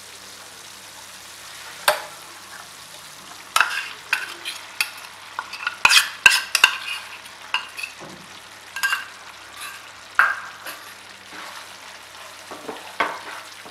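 Onion-garlic masala frying in oil in a pan with a light steady sizzle, while ground poppy-seed paste is scraped out of a bowl into the pan and spread with a spatula. The utensils make irregular clicks and scrapes against the pan, thickest in the middle of the stretch.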